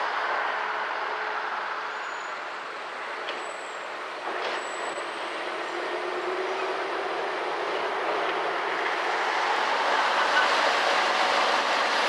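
Road traffic passing close by: tyre and engine noise fades away over the first few seconds, then slowly builds again as more vehicles approach near the end.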